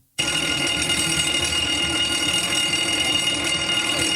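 An electric bell ringing loudly and steadily, starting suddenly and beginning to fade near the end.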